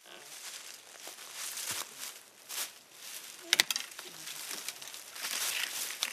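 Dry leaves and twigs rustling and crackling as a person pushes through brittle undergrowth, with a couple of sharp cracks of snapping wood a little past halfway.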